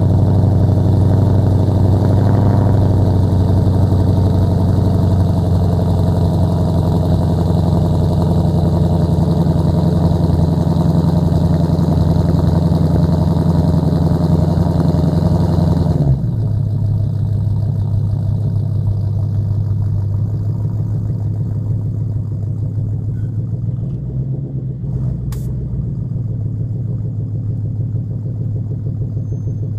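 2012 Ford Mustang GT's 5.0 V8, breathing through Flowmaster Outlaw mufflers and a JBA off-road H-pipe, idling loud and deep just after a cold start. About halfway through, the raised cold-start idle drops suddenly to a lower, slightly quieter idle that then runs steadily.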